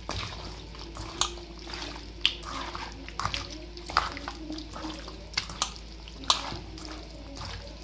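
Bare hands squishing and kneading raw beef chunks in a steel bowl to marinate them, wet squelching broken by sharp smacks about once a second.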